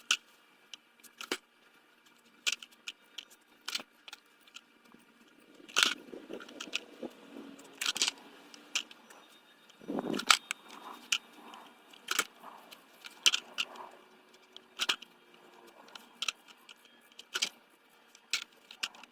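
Skateboard deck and wheels clacking sharply on pavement again and again during flip-trick attempts, with short stretches of the wheels rolling in between.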